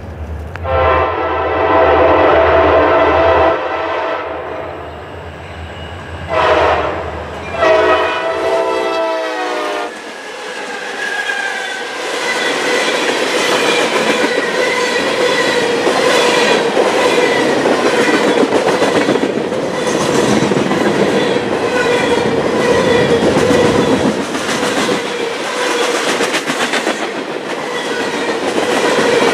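A CSX freight train led by three EMD diesel locomotives (two SD40-2s and a GP38-2) passes close by, sounding its air horn: a long blast, then a short one and a longer one that drops in pitch as the locomotives go by, over a low diesel rumble. After that the freight cars roll past with a steady clatter of wheels clicking over the rail joints and a steady high ring from the wheels.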